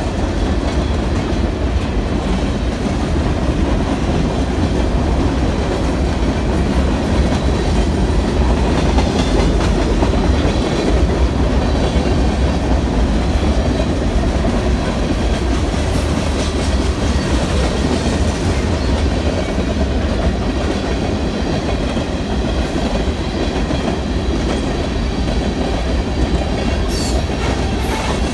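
Freight cars of a passing mixed freight train rolling by close at hand: a steady, loud rumble of steel wheels on the rails that holds throughout.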